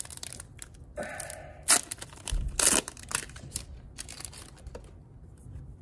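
Plastic trading-card pack wrapper being torn open and crinkled by hand, with a rapid, irregular crackle and a couple of sharper rips near the middle.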